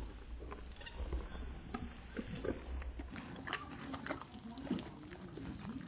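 A horse biting and chewing a peeled banana held out by hand, with irregular chewing and crunching sounds close to the microphone.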